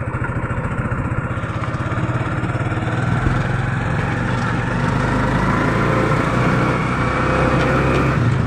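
Motorcycle tricycle engine running steadily while riding, its note and loudness rising gradually as it picks up speed.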